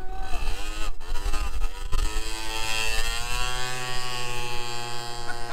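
Small motor scooter engine revving unevenly, then pulling away with a steady, slowly rising pitch as it accelerates.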